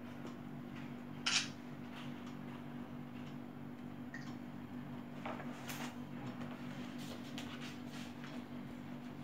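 Steady low hum in a quiet room, with a few short, soft rustles and clicks of notebook pages being handled; the sharpest comes about a second in.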